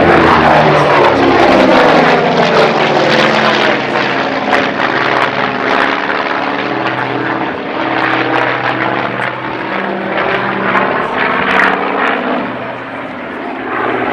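Grumman F7F Tigercat's twin Pratt & Whitney R-2800 radial engines running at high power during aerobatics. Their tone drops in pitch as the aircraft passes in the first couple of seconds, then wavers as it manoeuvres, dipping briefly near the end.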